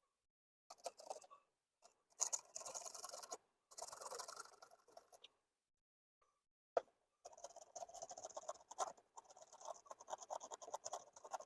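Scraping on a battery cable connection to clean the contact and get a better bite: three short bouts of scratchy strokes, a single sharp click, then a longer run of quick scraping strokes.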